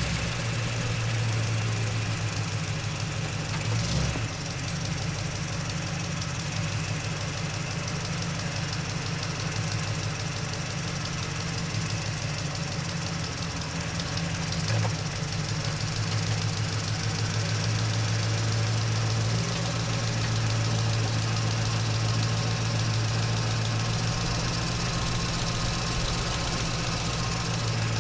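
Truck engine running at low speed as the truck drives slowly, heard from inside the cab as a steady low hum with a dull knock about four seconds in.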